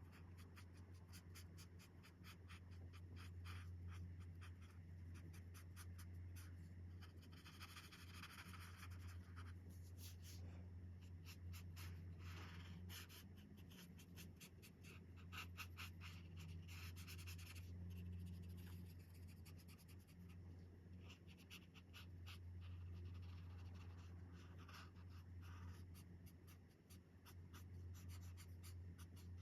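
Chen Rui alcohol marker tips stroking across coloring-book paper in many quick, faint, repeated strokes, over a steady low hum.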